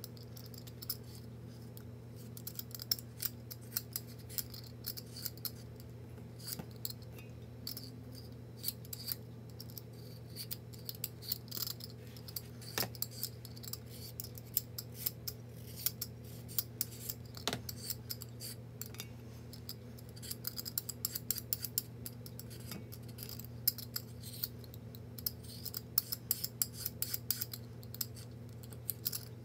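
Carrots being cut with a knife on a cutting board, played at double speed: a dense, irregular run of light clicks and scrapes with a few harder knocks, over a steady low hum.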